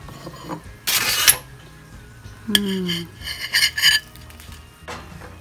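Metal fork and spoon scraping through crinkled aluminium foil and clinking against a ceramic plate while a baked mackerel fillet is lifted out and served. There is one loud scrape about a second in, then a quick run of ringing clinks a little past the middle.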